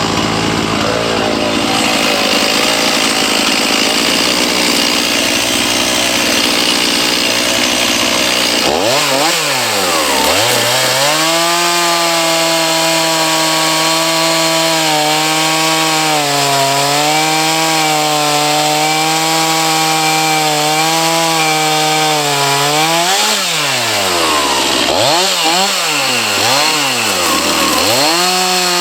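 Chainsaw cutting through a wooden vase blank. About nine seconds in, the sound changes abruptly to a steadier engine note. The revs then drop and climb again, hold fairly steady, and drop and climb several more times near the end.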